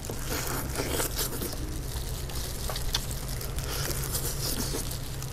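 Close-miked eating: biting, chewing and tearing of honey-grilled chicken, with plastic food gloves crinkling, in irregular small clicks and rustles over a steady low rumble.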